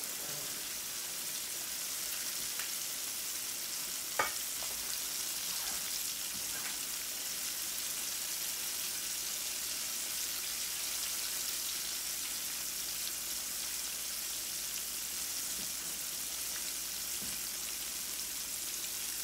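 Chicken pieces deep-frying in hot oil in an aluminium pot, sizzling steadily. A single sharp click comes about four seconds in.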